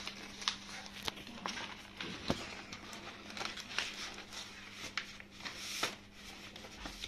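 Paper and card worksheets rustling and crinkling as they are handled and slid into a cardboard box, with irregular light taps and scrapes. A faint steady low hum runs underneath.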